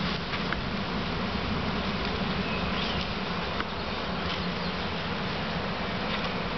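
A swarm of honeybees buzzing around a hive, a steady, continuous hum.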